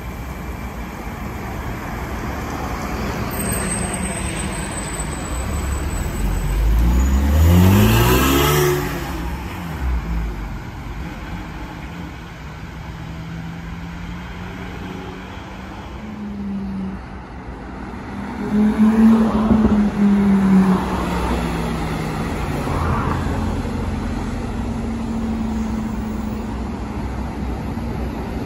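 Porsche 911 flat-six revving hard as it accelerates away, its pitch climbing steeply for about two seconds, over steady street traffic. Later another car's engine runs loudly past at a fairly steady pitch that falls slightly.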